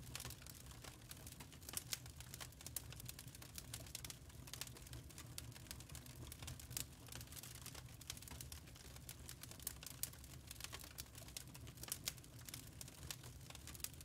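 Wood fire crackling in a fireplace: irregular sharp snaps and pops, a few louder than the rest, over a low steady rumble.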